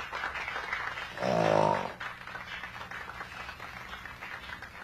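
A person's low, drawn-out groan of under a second about a second in, over faint room noise with a steady low hum.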